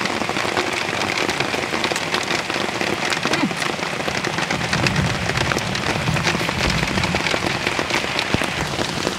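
Steady rain falling on an umbrella overhead and a wet wooden table, with many single drops ticking sharply close by.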